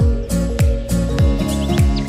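Background music with a steady beat: a deep bass kick that slides down in pitch on each beat, about two beats a second, with a few short high chirps over it.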